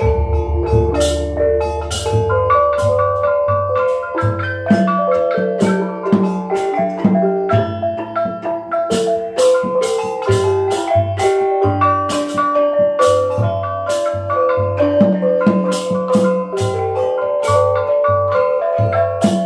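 Osing gamelan ensemble playing a piece: rows of small bronze kettle gongs struck in busy, ringing interlocking patterns over a steady kendang drum beat. A deep gong tone sustains through the first few seconds.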